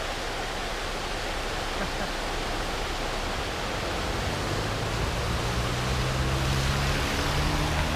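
Floodwater rushing steadily across a road, an even unbroken rush. About halfway through, a low steady hum joins in and grows slightly louder.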